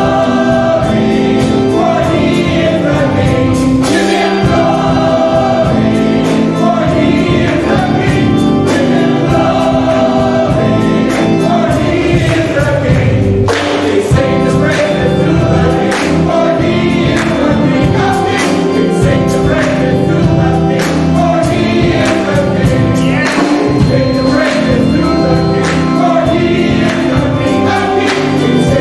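Gospel choir singing with organ accompaniment and a steady beat, the singers clapping along near the end.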